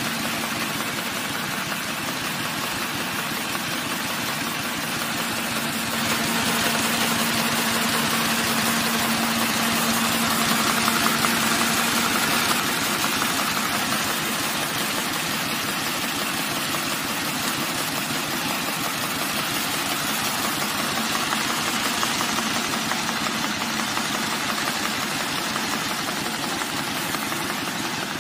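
Red envelope making machine running: a steady, fast mechanical clatter with a hum, a little louder for several seconds about a quarter of the way in.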